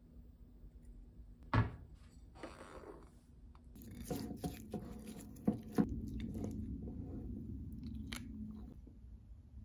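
A metal spoon mixing rice and soy-marinated eggs in an enamel bowl. A single knock comes about one and a half seconds in, then from about four seconds in a run of clinks and scrapes against the bowl.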